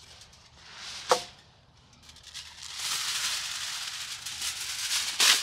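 Aluminium foil being pulled off the roll and handled, a dense high crinkling rustle from about halfway, ending in a sharp rip as the sheet is torn off. A short sharp clink comes about a second in.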